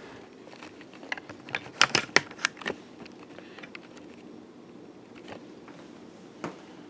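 Casablanca Turbo Zephyr ceiling fan running at full speed with a steady hum. About a second in comes a quick run of sharp clicks and knocks, the loudest near two seconds, and there is one more click near the end.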